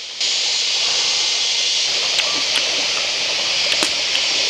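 Steady hissing rush of a flowing stream, cutting in abruptly just after the start, with a few faint clicks over it.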